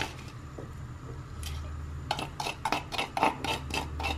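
Steel spoon scraping and tapping inside a wooden mortar, scooping out crushed green chili paste. There are a few light taps at first, then a quick run of scrapes and knocks about halfway through, over a low steady hum.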